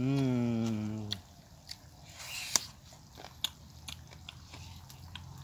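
A man's low hummed 'mmm' of enjoyment, falling slightly in pitch and lasting about a second. Then eating sounds follow: scattered sharp clicks and crunches as a piece of chicken on the bone is picked apart by hand and chewed, the loudest crack about two and a half seconds in.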